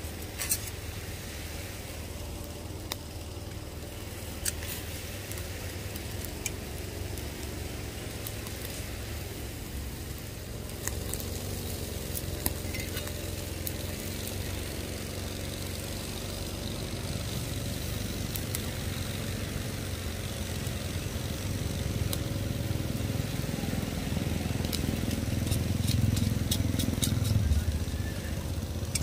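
Tomahawk steak sizzling over a fire, with scattered crackles and pops and a steady low rumble underneath that grows louder near the end.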